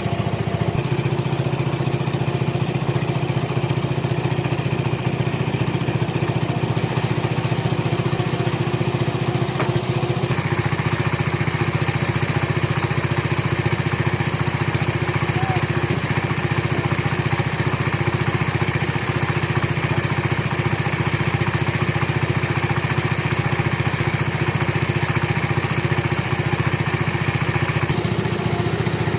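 Sawmill engine running steadily, its note changing about ten seconds in and again near the end.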